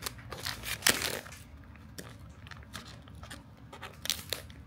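Foil blind-bag packet crinkling quietly as it is handled, then scissors snipping into the foil near the end.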